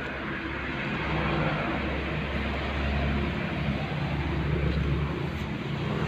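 A motor engine running steadily under a broad hiss, swelling about a second in and easing off near the end.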